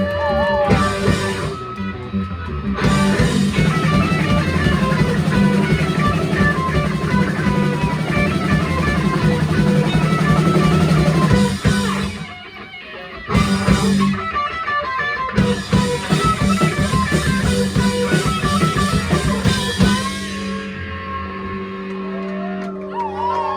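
Live rock band playing, with electric guitar and drum kit. The music breaks off briefly about halfway, comes back, and near the end the cymbals stop, leaving quieter held guitar notes as the song winds down.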